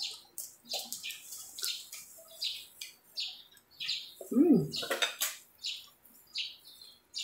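Close-up eating sounds: crab shell and meat picked apart with plastic-gloved fingers, then wet chewing and lip smacking in short, sharp clicks about twice a second. A brief hummed voice sound falls in pitch about four and a half seconds in.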